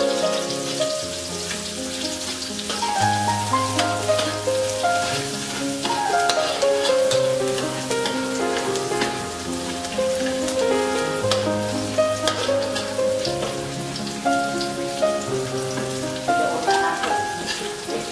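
Minced garlic sizzling in hot oil in a wok, stirred with a spatula that scrapes and taps the pan now and then, over background music with a melody and a stepping bass line.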